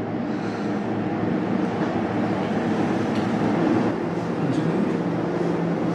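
Steady low-pitched background noise with a faint hum and no speech.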